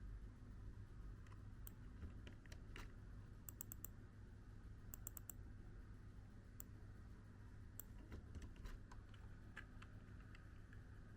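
Faint, scattered light clicks, some in quick runs of three or four, over a steady low room hum.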